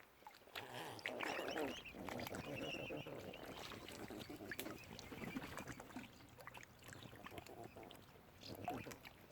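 Waterfowl calling on and off, loudest and most varied in the first few seconds, with scattered small clicks and knocks.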